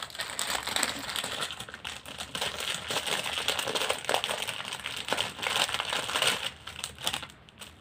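Clear plastic wrapping crinkling and rustling as it is handled and pulled off a children's book, with many small crackles, dying away near the end.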